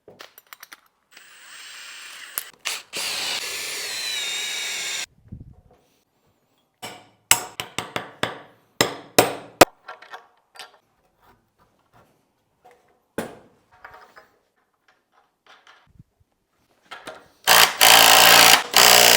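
Power drill running for about four seconds, its pitch wavering, then a series of sharp knocks and clacks as timbers and a toothed dog washer are fitted together. A louder power-tool run near the end drives the bolt through the timbers, clamping the dog washer between them.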